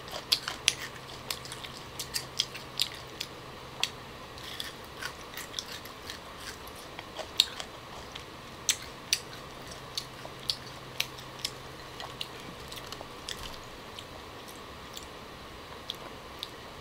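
Close-miked chewing of young green tamarind pods: many sharp crunching clicks, coming thick and fast for about the first twelve seconds, then only a few near the end.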